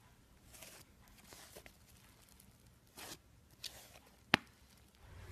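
Fluffy slime being pressed and squeezed by hand: soft, scattered crackles and squishes, with one sharp click about four seconds in.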